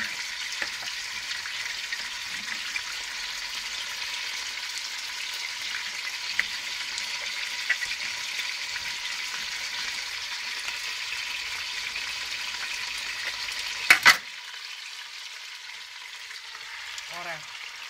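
Pieces of pork tenderloin frying in hot oil in a pot, a steady sizzle throughout. About fourteen seconds in, two sharp knocks sound close together.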